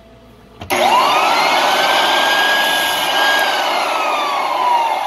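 Clarke American Sanders Super 7 floor edger starting up about a second in: its motor whine rises quickly and holds over the noise of the sanding disc cutting into the hardwood floor. From about halfway the whine falls steadily as the motor winds down. This is a brief test cut to check the pad's adjustment.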